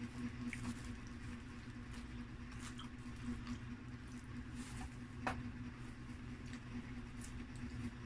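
Small crackles and rustles as thin-crust pizza slices are torn and moved about on a paper liner in a cardboard box: scattered short clicks, one sharper snap about five seconds in, over a steady low hum.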